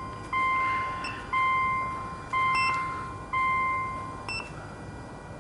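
A car's interior warning chime dings about once a second, four times. Each ding starts sharply and fades out, and the chiming stops about a second before the end. Two short, higher electronic beeps sound among the dings.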